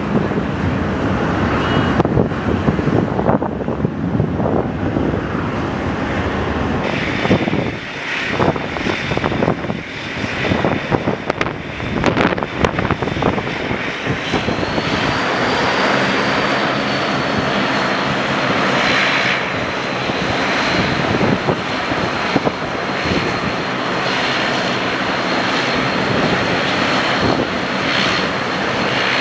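Airliner engines running: an uneven rushing noise for the first half, then from about halfway in a steady high whine over a low hum.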